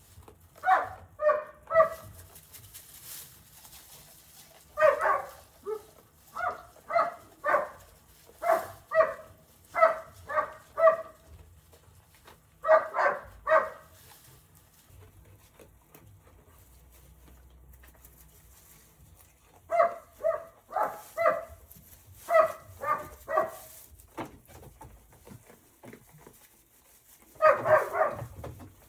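A dog barking repeatedly in short runs of two to four barks, with a pause of several seconds in the middle.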